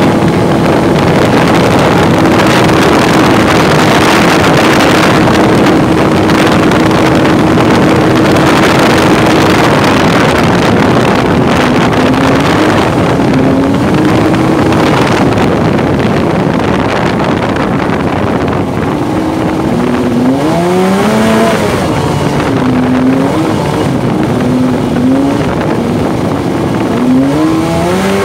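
Mini jet boat's engine running at a steady speed under a loud rushing noise, then its pitch rising and falling repeatedly through the second half, with several quick revs up near the end.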